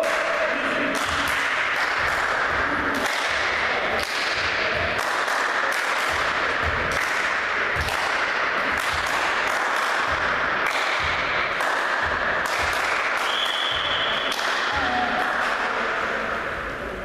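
Steady loud crowd din in a gymnasium during a volleyball match, with sharp claps or bangs every half second to a second. A short high whistle sounds about thirteen seconds in.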